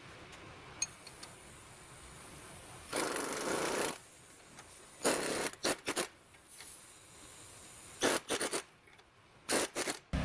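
Hand tools working on metal suspension parts: a scrape of about a second, then three quick clusters of short sharp clicks and clatter.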